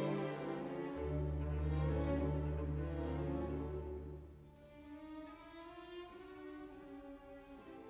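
Background music: slow string orchestra with violin and cello, a deep bass note held for a few seconds, then softer sustained strings.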